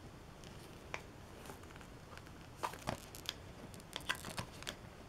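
Faint, scattered clicks and light handling sounds of a small phaser prop replica being turned over in the hands while feeling for its battery compartment, a few sharp taps bunched in the second half.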